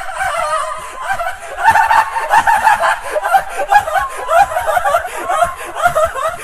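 A high-pitched voice cackling in a rapid run of short laughing pulses, many a second, its pitch sliding up and down.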